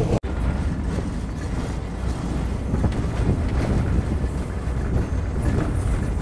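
Steady low rumble of railway carriages running along the track, heard from on board the moving train. The sound cuts out for an instant just after the start.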